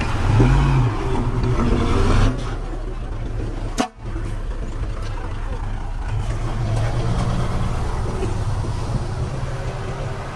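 Diesel engine of heavy earthmoving machinery running steadily, with a brief rise and fall in pitch near the start and a short click and dropout about four seconds in.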